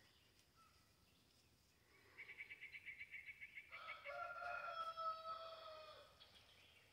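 A rooster crowing once, faint: one long call held for about two seconds that drops in pitch at the end. Just before it comes a rapid high trill of about nine pulses a second.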